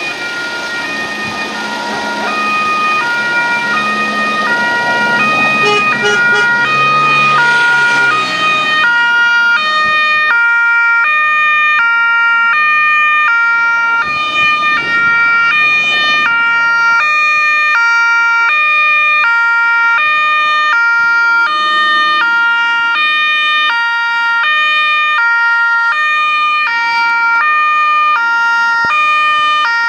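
Two-tone hi-lo sirens on Elevox-equipped Polizia Locale Kia Niro Electric patrol cars, switching pitch about every half second and getting louder as they approach. Traffic noise with a low engine rumble runs under the sirens for the first several seconds.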